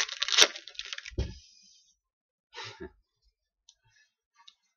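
Trading cards being handled as packs are opened: about a second of rustling with a sharp click, a soft thump, then a short rustle in the middle and a few faint ticks.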